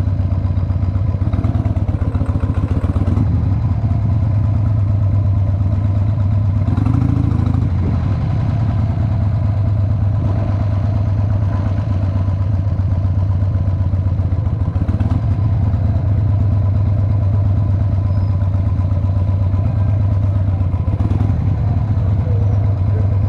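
Cruiser motorcycle engine running steadily at low speed, a low pulsing rumble as the bike rolls slowly along, heard from the rider's seat.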